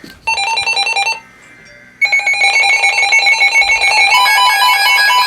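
NOAA weather alert radios sounding their electronic alarms for an incoming severe thunderstorm warning. A short burst of rapid high beeping comes first, then after about a second a continuous fast-pulsing alarm starts, and a second alarm pattern joins in about four seconds in.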